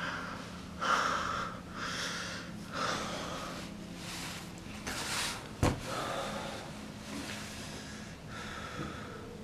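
A man breathing heavily in distress, a loud breath roughly once a second. There is a single sharp click a little past halfway.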